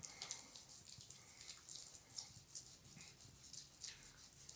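Faint, irregular wet rubbing and squishing of hands being scrubbed with a cut lemon and cornstarch, the lemon squeezed as it is rubbed over the skin.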